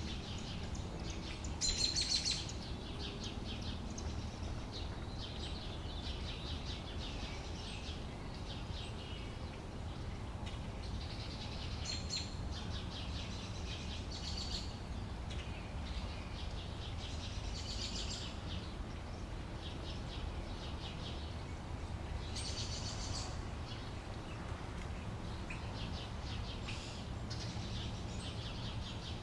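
Outdoor summer daytime ambience: songbirds singing short chirping phrases every few seconds over a steady low background rumble.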